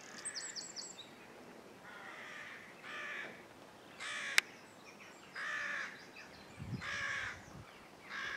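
A crow cawing over and over: about six harsh caws a little over a second apart. A small bird chirps in the first second, and there is a single sharp click near the middle, the loudest moment.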